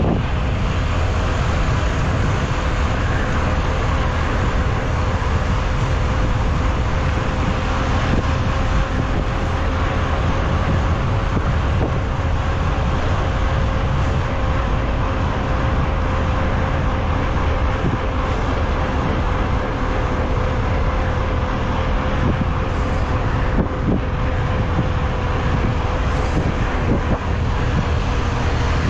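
Mountain bike rolling fast over a dirt trail: a steady rush of wind on the camera microphone over the rumble of the tyres, with a thin steady hum above it.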